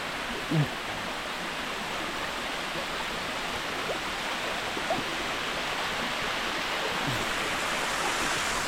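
Waterfall and stream water rushing steadily, gradually growing louder, with the thin flow of the dry season. One short low sound comes about half a second in.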